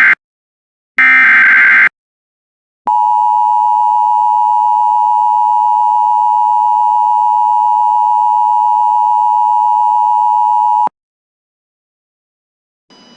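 Emergency Alert System header data burst, a short raspy digital warble, ending about two seconds in. It is followed by the steady single-pitch EAS attention tone for about eight seconds, which cuts off abruptly and signals that a warning message follows.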